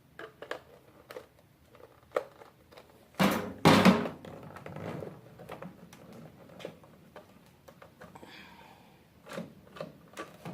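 Irregular clicks and knocks of a tool working at the screws of a small appliance's housing while the casing is handled, with two louder knocks about three seconds in.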